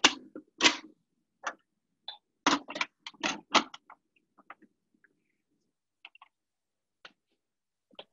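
A series of sharp clicks and knocks from a plastic food processor bowl and lid being handled on a kitchen counter. They are busiest in the first few seconds, then thin out to a few faint ticks.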